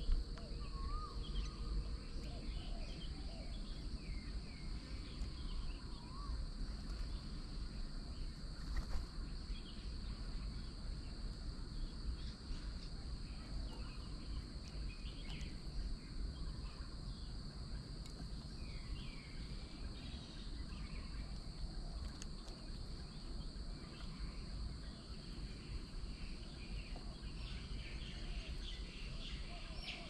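Rural outdoor ambience: a steady high-pitched insect drone with scattered small bird chirps and twitters over a low background rumble.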